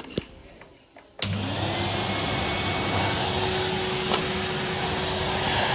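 Numatic Henry vacuum cleaner switched on about a second in, its motor spinning up with a rising whine and then running steadily.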